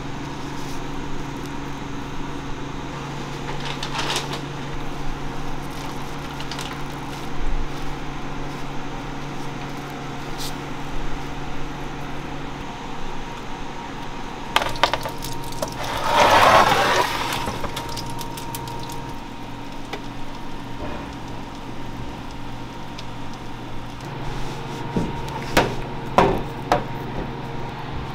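Steady kitchen machine hum with handling noise: sesame seeds rustling and scraping as bagel dough is pressed into a tray of them, and soft taps as coated bagels are set on a metal baking sheet. A louder rustle lasting about a second comes a little past halfway.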